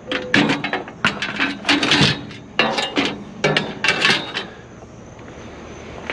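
Metal bed frames clanking and rattling against each other as they are handled and stacked, a quick series of ringing clanks that dies away about four and a half seconds in.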